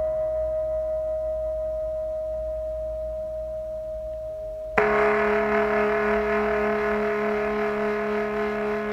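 Ringing, bell-like instrumental tones. One tone slowly fades, then about five seconds in a louder, lower tone is struck and rings on with a wavering beat.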